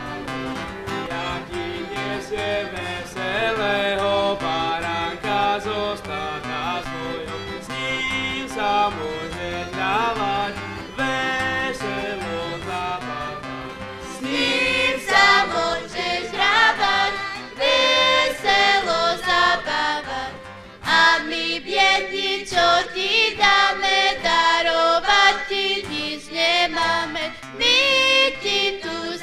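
Live folk-style band of violin, accordion and acoustic guitar playing a tune together. About halfway through the playing gets louder, with brighter, more sharply picked-out notes.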